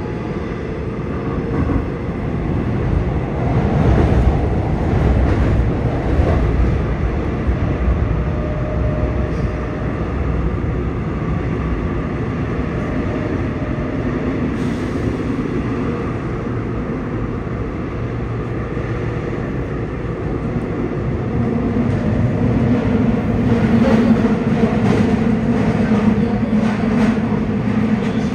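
Seoul Subway Line 6 electric train with Mitsubishi IGBT-VVVF drive running between stations, heard from inside the car: a loud, continuous rumble of wheels on track. It swells a few seconds in, and a steady low hum comes in near the end.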